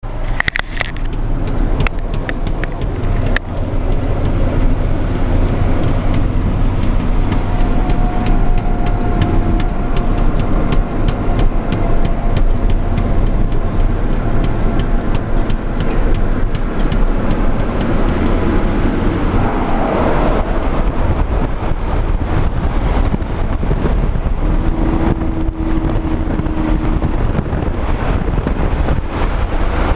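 Steady vehicle and road noise while travelling on a highway: a continuous low rumble with frequent short knocks and buffets.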